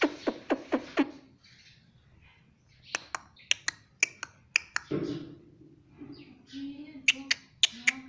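Indian ringneck parrot making sharp tongue clicks in quick runs of several clicks, with soft low mumbling between the runs.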